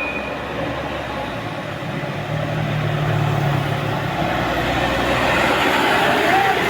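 A bus passing on the road: engine running and tyre noise, growing steadily louder as it comes closer, with a low engine drone standing out a couple of seconds in.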